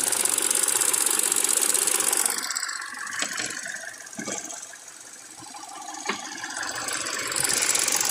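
Chevrolet Ecotec engine idling with the hood open, a steady hum and hiss. It fades for a few seconds in the middle, where a few light ticks stand out, and comes back up near the end.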